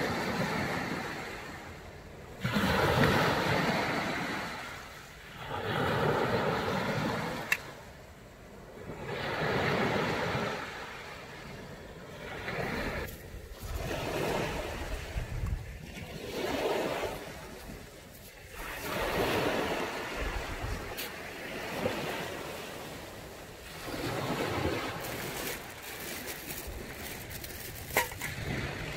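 Sea waves washing onto a beach, the surf swelling and fading every few seconds. Two brief sharp ticks come through, one about a third of the way in and one near the end.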